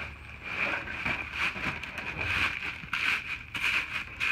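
Rustling and scraping of a backpack being lifted and pulled out of a cardboard box, coming in irregular bursts with a few light knocks.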